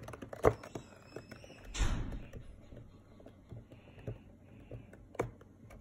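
Kinetic sand crumbling from hands and dropping in clumps onto a plastic sand tray: soft scattered taps, with a sharper click about half a second in, a short rush of noise near two seconds, and another click near the end.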